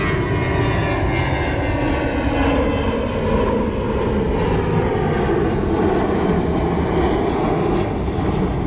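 Steady, loud drone of industrial machinery running, with several held tones over a rumble.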